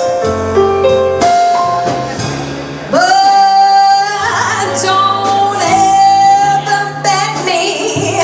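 Live jazz: a woman sings long held notes over walking bass and light drums and cymbals.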